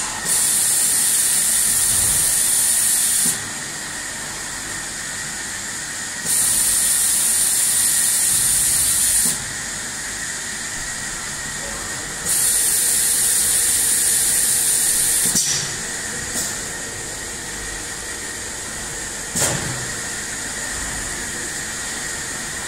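Stainless steel keg washer-filler running its automatic cycle: three hissing blasts of about three seconds each, six seconds apart, over a steady high tone. A few sharp clicks follow in the second half.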